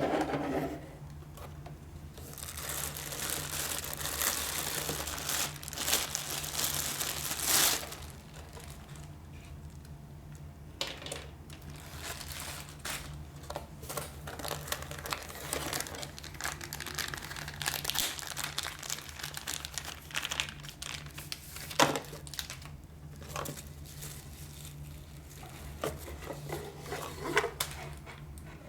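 Packaging crinkling and rustling as it is handled and unwrapped, in irregular crackling bursts that are densest in the first several seconds. A steady low electrical hum runs underneath.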